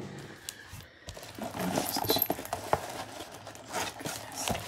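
Rustling of packaging with a run of light clicks and taps as small craft embellishments and charms are handled on a table.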